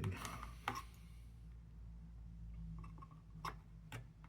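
A few sharp clicks and taps from the parts of a handheld puzzle box being pushed and turned, over a low steady hum.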